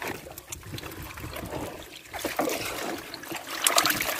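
Water trickling and dripping from a wet mesh net bag of live fish as it is handled in a boat's hull, with scattered small knocks and rustles that grow louder near the end.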